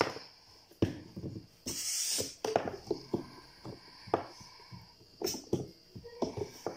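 Handling noises from a floor air pump and its hose: scattered clicks and knocks, with a short burst of hiss about two seconds in.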